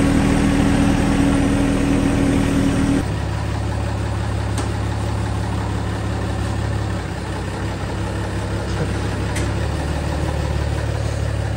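Engine of a John Deere sub-compact tractor running steadily at idle; its note changes abruptly about three seconds in, then carries on steady.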